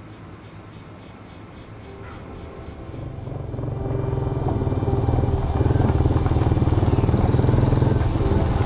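Motorcycle engine running as the bike rides along, growing louder about three seconds in and then holding steady.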